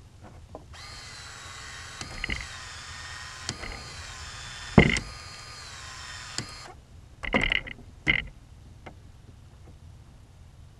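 Battery-powered PEX expansion tool running for about six seconds, its motor whine dipping in pitch as it works the end of a PEX pipe open, with sharp clicks during the run. A few knocks follow after the motor stops.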